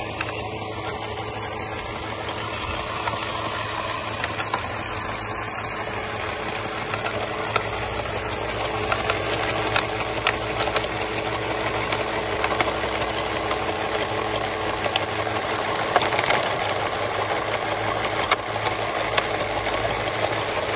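Steady whir of small electric motors from a radio-controlled CAT 950M model wheel loader and a model conveyor belt, with scattered clicks and rattles of small stones as the loader works gravel and tips it into the conveyor's hopper.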